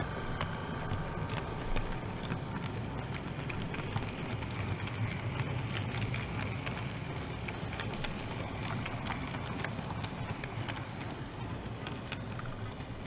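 Model train with a Conrail GP15 locomotive running past: a steady low hum under rapid, irregular clicking and rattling of the wheels on the track.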